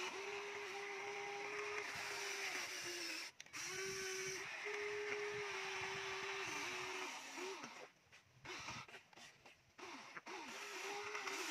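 Remote-control model excavator's electric motors and gearboxes whining as the boom, arm and bucket move. A steady whine that dips and bends in pitch as the motors change load. It cuts out briefly about three seconds in and mostly stops for about two seconds later on.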